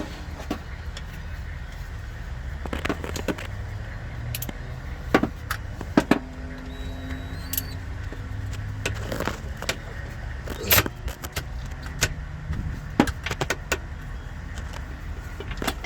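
Irregular metallic clicks and clanks of hand tools working on the shifter's 13 mm mounting bolts, with a few louder clatters, over a steady low rumble.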